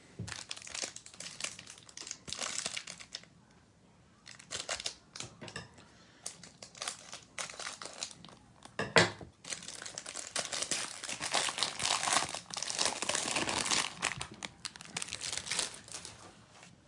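Crinkling and rustling from a trading-card hanger box and its packaging being handled, in stop-start bursts with a sharp knock about 9 seconds in and a longer, denser stretch of crinkling after it.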